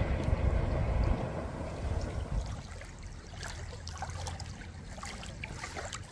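Wind buffeting the microphone for about the first two seconds, then a quieter stretch of light water lapping and trickling with small ticks and splashes.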